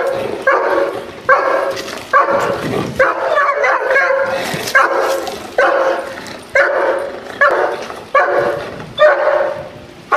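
German Shepherd protection dog barking over and over at a decoy while guarding its seated handler, a little over one bark a second in an even rhythm.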